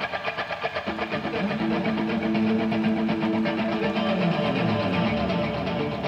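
A farm machine's engine running, with a low hum that drops in pitch about four to five seconds in, under background music with a steady beat.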